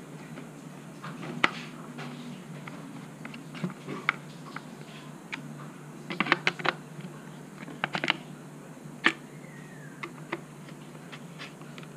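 Irregular clicks and taps of a screwdriver driving screws into a plastic motorcycle speedometer housing and knocking against it, over a low steady hum. The clicks bunch together about six seconds in, with single sharp ones near eight and nine seconds.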